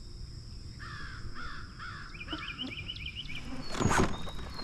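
Birds calling: a run of four falling, caw-like calls about a second in, then a quick string of higher chirps. Near the end comes a single sharp knock, the loudest sound here.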